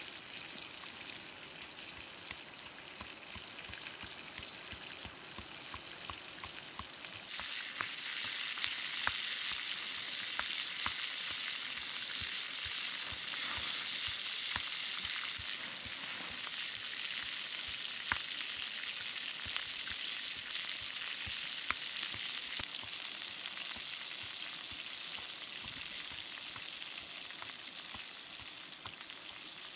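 A whole frog sizzling in its own juices on a hot stone slab over a wood fire, with scattered pops and crackles. The sizzle grows louder about seven seconds in.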